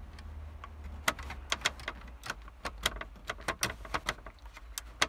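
Irregular sharp clicks and rattles of a Pure Highway H250S car radio head unit being worked in its metal DIN mounting cage, the clicking getting busier about a second in. The cage's retaining clips are too slack to grab the unit.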